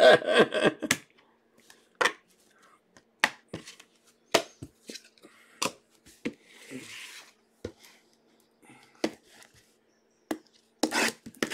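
Scattered sharp clicks and taps of trading cards and hard plastic card holders being handled and set down on a wooden tabletop, about one every second, with a brief rustle about seven seconds in. Near the end, a louder cluster of clicks and crackles as the plastic shrink wrap on a sealed card box is worked at.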